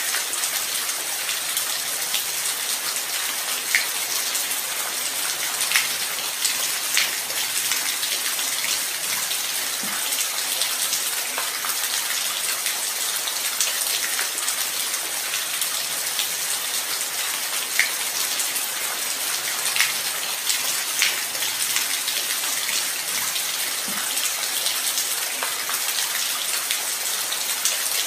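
Light rain falling steadily, an even hiss with scattered individual drops landing close by as sharp ticks.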